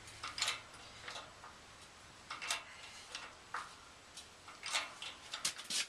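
Irregular light clicks and short scrapes of metal parts and tools being handled at a shop press, about a dozen of them spread unevenly.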